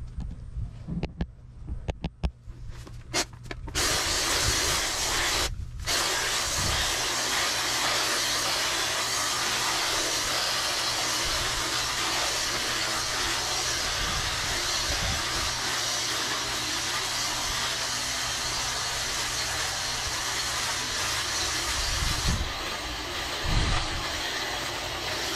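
A few scattered short noises, then from about four seconds in the steady, loud rushing hiss of gas-powered lawn equipment running at full throttle.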